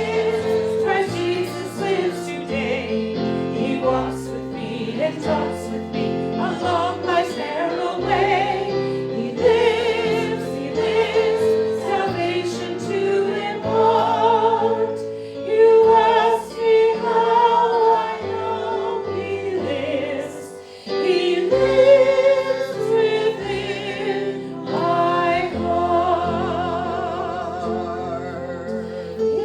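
Choir singing a hymn with instrumental accompaniment, the voices holding long notes with vibrato over a moving bass line.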